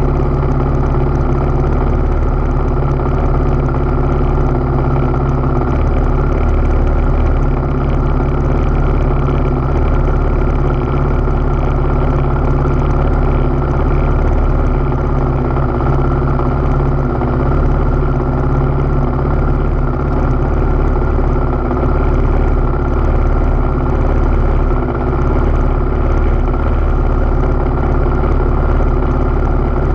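Trail motorcycle engine idling steadily close by, an even unchanging running note.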